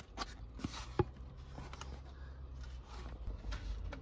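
A cardboard takeaway box being handled and opened: a few light taps and scrapes, the sharpest about a second in, over a low steady hum.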